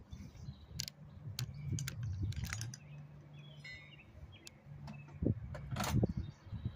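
Scattered light clinks and knocks of metal hand tools being handled, with a few bird chirps and a low steady hum in the background.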